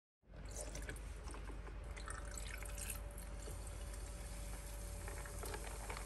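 Fizzy drink over ice crackling and popping in a glass close to the microphone, with a low steady hum underneath.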